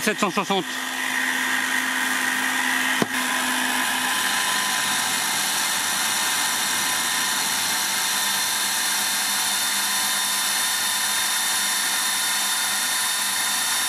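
Parkside PTBMOD 710 B2 bench drill press running at about 1760 rpm, its 4 mm twist bit cutting into a steel bar: a steady motor hum with several fixed tones over the grinding of the cut, holding speed without bogging. A single sharp click about three seconds in.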